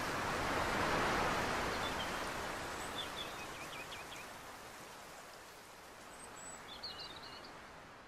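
Steady rushing outdoor noise that swells in the first second and then fades out, with a few birds chirping faintly, once around three seconds in and again near the end.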